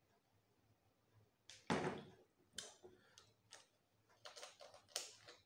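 A single thump, then a string of short plastic clicks and scrapes as a screw cap is twisted onto a plastic soda bottle.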